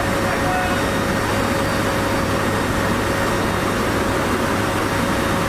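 Steady drone of a Lockheed C-130 Hercules's four turboprop engines and propellers, heard inside the cargo hold, with a steady whine held over it.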